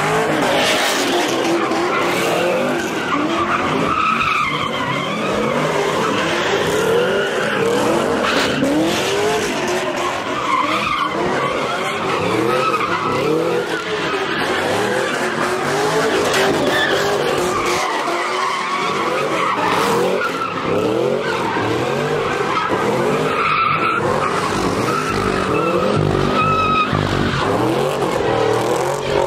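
Cars doing donuts and burnouts, engines revving up and down over and over above a continuous squeal of spinning tires.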